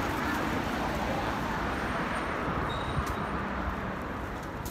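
Steady road traffic noise from cars running along a wide city avenue.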